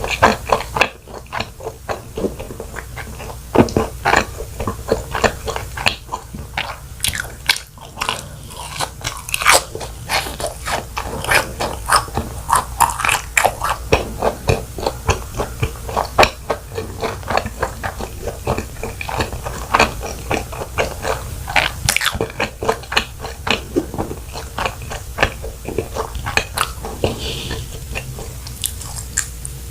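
Close-up eating sounds of cheese balls being bitten and chewed: a continuous run of crunchy bites and chewing crackles.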